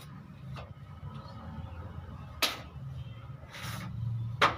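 Two sharp knocks of white plastic water pipe being handled and fitted against a fitting, about two seconds apart, the second the louder, with a short rustle between them.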